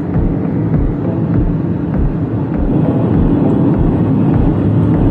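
Steady low rumble of a car driving on a country road, heard from inside the cabin: tyre and engine noise with a low throb about three times a second.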